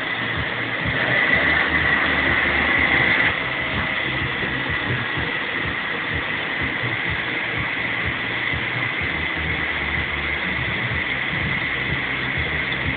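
Vacuum cleaner running steadily with a whining hiss. It is a little louder for the first few seconds, then drops back suddenly, with irregular low bumps underneath.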